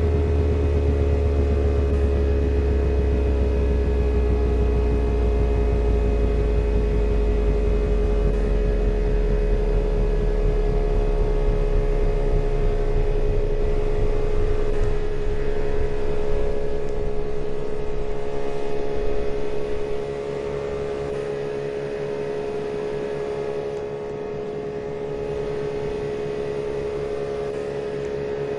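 Kenmore washing machine running, with a steady motor hum and a deep rumble that slowly fades; about 20 seconds in the rumble drops away and the sound gets quieter.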